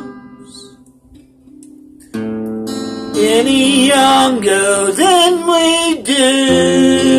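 Acoustic guitar and a man's singing voice. A chord rings and dies away, the guitar comes back in with a strum about two seconds in, and about a second later the man starts singing over it.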